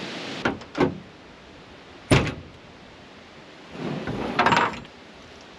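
Handling knocks: two light knocks, a sharp knock about two seconds in, then about a second of clattering.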